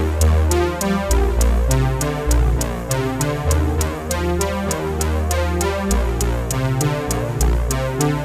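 Background electronic music with a synthesizer melody, a deep bass line and a steady drum-machine beat.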